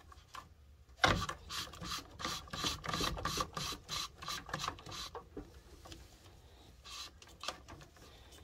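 Plastic water purifier filter cartridges being twisted in their interlock head, giving a run of quick ratcheting clicks for a few seconds that thin out and fade near the end.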